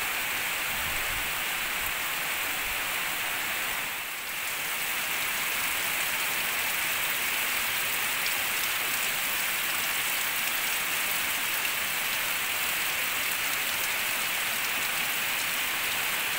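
Heavy rain pouring steadily, with a brief dip in level about four seconds in.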